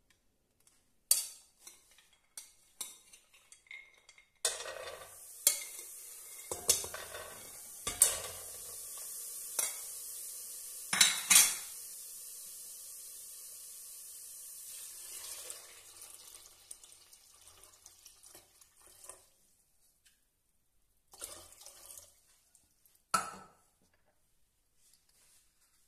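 Dried chickpeas rattling and clicking as they are tipped into an empty enamel pot, then a steady pour of water over them, with a few knocks of kitchenware near the end.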